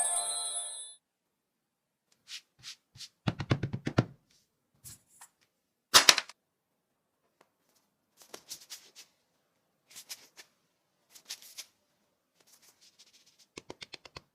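Slime being handled, with scattered bursts of short wet clicks and crackles, the loudest about six seconds in. A brief ringing tone sounds at the very start.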